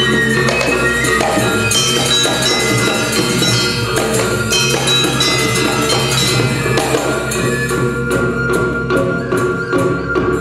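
Balinese gamelan playing: bronze metallophones ringing in a dense, fast pattern over a steady low tone, with kendang drum strokes; the sharp strokes stand out more in the last few seconds.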